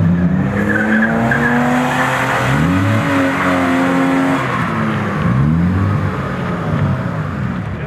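BMW drift car's engine revving up and down repeatedly as the car slides, with its tyres squealing on the asphalt.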